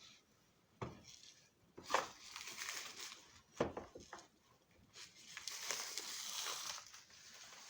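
Handling noise: a few sharp knocks and clinks, then a couple of seconds of rustling and crinkling.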